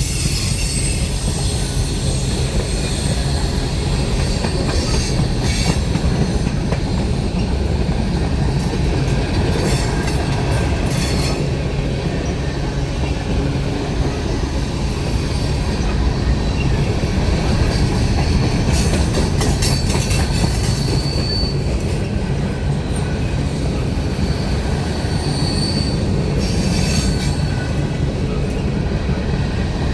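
A CSX manifest freight train's cars rolling past in a steady rumble of steel wheels on rail. A few brief high wheel squeals cut in now and then.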